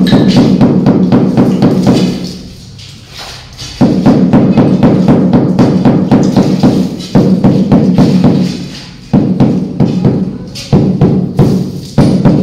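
Rubber mallet rapidly tapping a large floor tile to bed it down onto dry-pack mortar: dull thuds several a second, in runs of one to three seconds with short pauses between.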